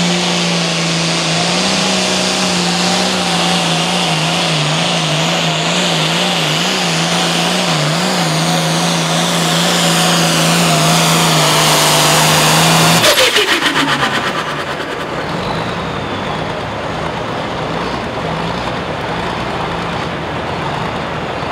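Turbocharged International pulling tractor's 466-cubic-inch diesel running at full throttle under load as it pulls the sled, its note wavering. About 13 seconds in the throttle comes off abruptly and the engine drops away to a lower, steadier run at the end of the pull.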